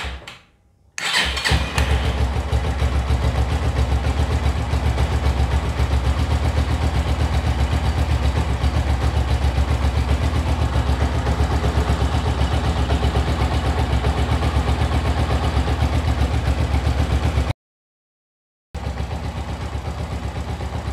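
Motorcycle engine catching about a second in and then idling steadily with a fast, even beat. It runs at idle while its charging system charges the battery. The sound cuts out for about a second near the end, then the idle comes back a little quieter.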